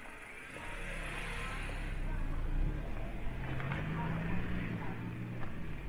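A motor vehicle's engine running close by on the street, getting louder over the first second or two, its low hum shifting in pitch.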